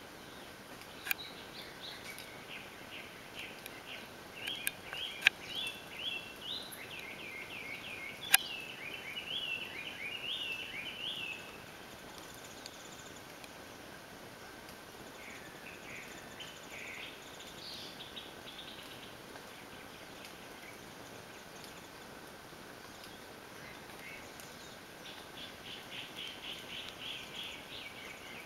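Several birds singing and calling: quick runs of high chirping notes in bursts, busiest in the first dozen seconds and again near the end, over a steady hiss. A few sharp clicks stand out in the first nine seconds.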